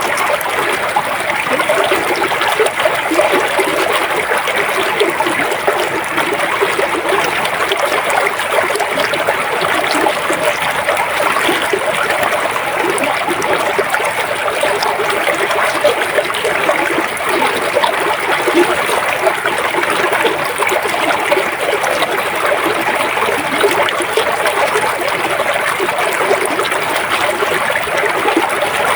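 River water flowing steadily, a continuous rushing and trickling wash with no breaks.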